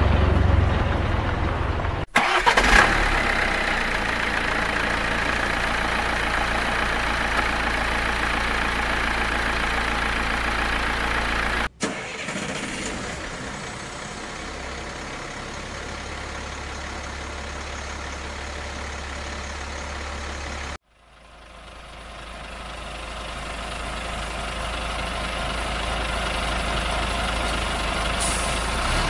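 Engine running steadily, broken by abrupt cuts about 2, 12 and 21 seconds in; after the last cut it fades back in gradually.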